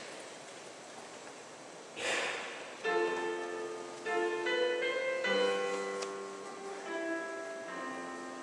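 Piano playing slow, sustained chords that enter about three seconds in and change roughly every second, with a brief noisy rustle just before the first chord.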